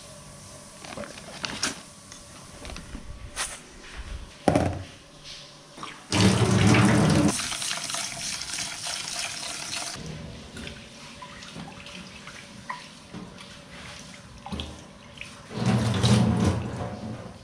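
A few light knocks, then water from a kitchen tap running into a pot of rice in a steel sink for about four seconds, rinsing the rice, before it stops. Near the end, water splashes briefly into the sink as rinse water is splashed onto a face.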